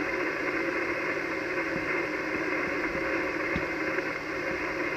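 Steady static hiss of the 80-metre band coming through an Icom HF transceiver's speaker in voice (SSB) mode, band-limited to a narrow voice-width hiss. No station is transmitting: the receiver is passing band noise between stations.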